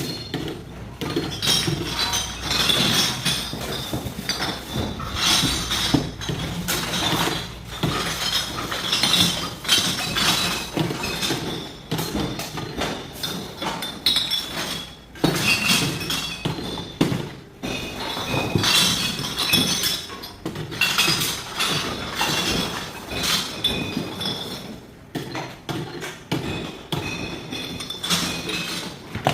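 Glass clinking and clattering over and over, many small hard knocks close together, with brief pauses now and then.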